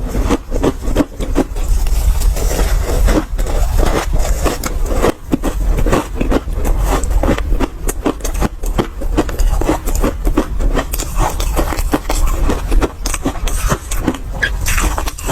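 Close-miked crunching of an ice ball dusted with matcha powder as it is chewed: a dense, irregular run of sharp ice cracks and crackles over a low rumble.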